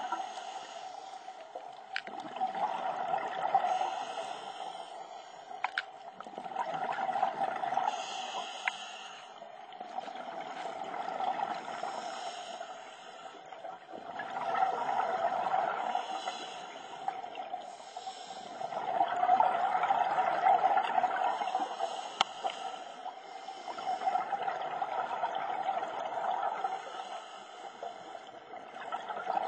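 Scuba diver breathing through a regulator underwater, with exhaled bubbles rising in a swell about every four seconds. A few sharp clicks sound now and then between breaths.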